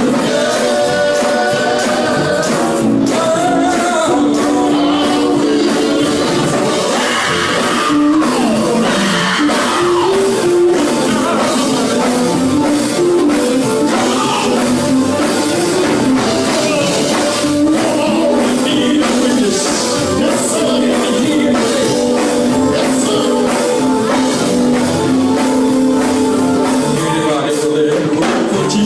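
Live gospel music: voices singing over band accompaniment with a steady beat.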